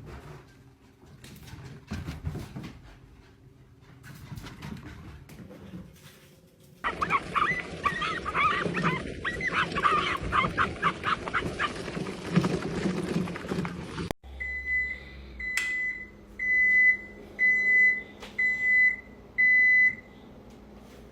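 A dog yipping and whining rapidly for several seconds, starting about seven seconds in. After it cuts off, six loud electronic beeps sound at a steady pitch about a second apart.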